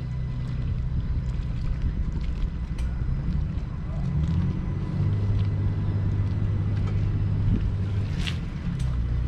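A small passenger boat's engine running at low speed as it manoeuvres in to berth against a jetty. Its low note changes pitch about four seconds in, holds steady for a few seconds, then shifts again near the end.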